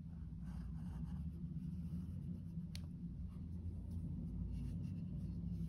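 Faint rubbing of white cotton gloves on a metal lens barrel as the lens is turned in the hands, over a steady low drone, with one sharp click nearly three seconds in.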